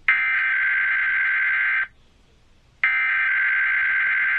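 Emergency Alert System SAME header: two bursts of the shrill, buzzing digital data tone, each just under two seconds long and about a second apart, the coded header that opens an EAS required monthly test.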